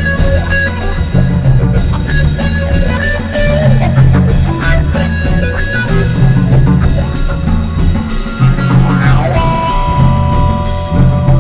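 Electric guitar, bass guitar and drum kit playing a loud free improvisation in a psychedelic jazz-rock style: busy low bass notes, frequent cymbal and drum strokes, and sustained guitar tones, with one long guitar note held near the end.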